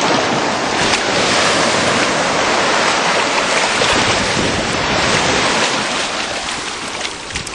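Sea waves washing onto a beach, a steady rushing noise.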